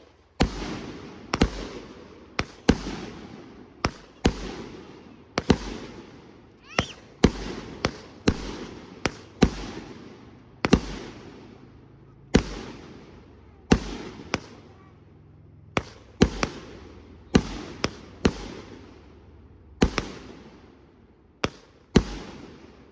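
Consumer aerial fireworks going off one after another: a sharp bang or deep boom about once a second, each trailing away in echo. A brief rising whistle is heard about seven seconds in.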